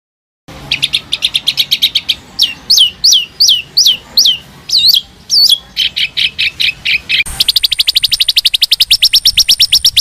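A songbird singing: a burst of quick high chirps, then a string of separate downward-swept whistled notes, then from about seven seconds in a fast, even trill of repeated notes.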